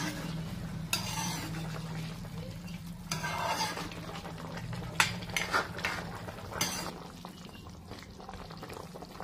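Metal ladle stirring chicken curry in a metal kadai: several short scraping strokes against the pan, with a sharp clink about halfway through, over a steady low hum. The stirring eases off near the end.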